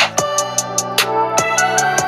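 Background music with a steady drum beat over held chords; the chords change near the end.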